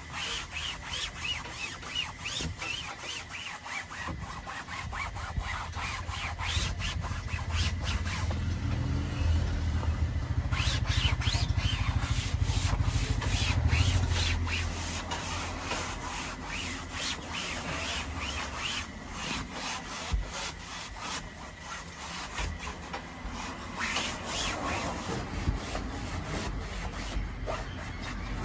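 Microfiber cloth scrubbed rapidly back and forth over a car's fabric headliner, a quick run of rubbing strokes. A low hum sits underneath, strongest in the first half.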